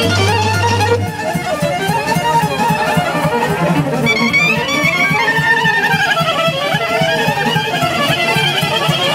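Live band music led by a violin playing a winding melody with sliding, ornamented pitch, over a steady rhythmic accompaniment.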